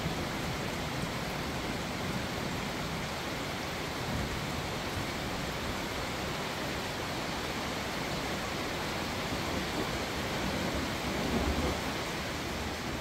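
Steady rain with distant rolling thunder, the low rumble swelling near the end.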